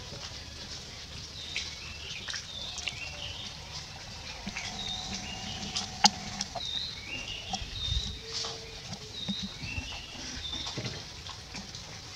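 High chirping calls, repeated many times over a low rumble, with one sharp click about six seconds in.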